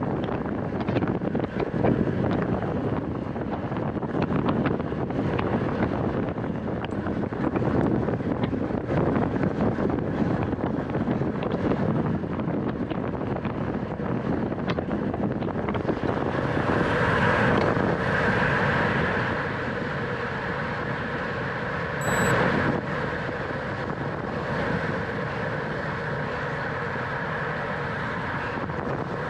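Wind rushing over the microphone of a racing cyclist's camera at speed, with rolling noise and small ticks; a little past halfway a steady buzzing with a fixed pitch joins in and runs on.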